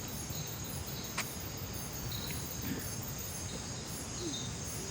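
Insects calling: a steady high trill, with short chirps now and then.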